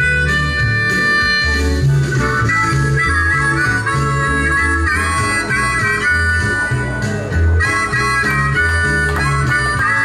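Several diatonic harmonicas played together through microphones, a lively blues-country tune with bending, shifting notes, over a steady bass line of low notes about twice a second.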